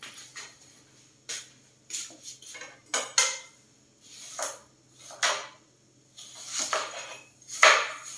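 Kitchen knife cutting white radish (daikon) on a plastic cutting board: irregular chops and knocks about a second apart, the loudest near the end.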